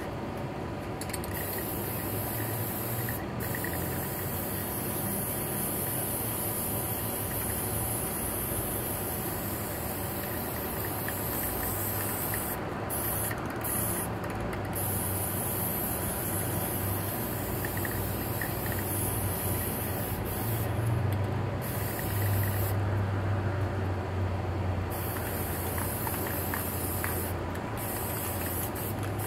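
Aerosol spray-paint can hissing as paint is sprayed onto a panel, in long sprays broken by several short pauses.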